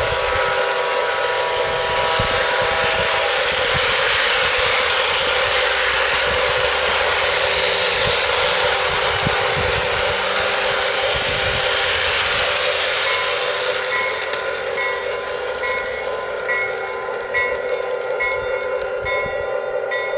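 Model diesel locomotive on a garden railway, a Lionel LionChief RS3, running with its sound system on: a held multi-note diesel horn chord fades out about three seconds in. About two-thirds of the way through, a bell starts ringing in steady, evenly spaced strokes, over a constant running hiss and hum.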